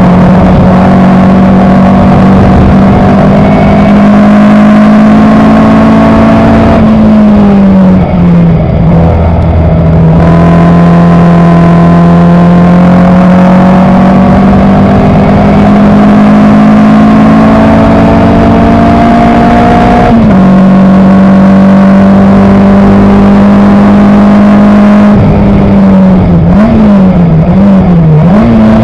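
Elva MkIV's Coventry Climax FWA four-cylinder engine at racing speed, heard loud from the cockpit, its note climbing steadily with speed. About seven seconds in it falls away as the driver lifts off. It drops sharply at a gear change about twenty seconds in, and near the end it rises and falls several times in quick succession as the driver changes down through the gears.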